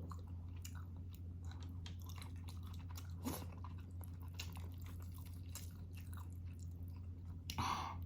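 A person chewing food close to the microphone, a run of many small, soft mouth clicks, over a steady low hum.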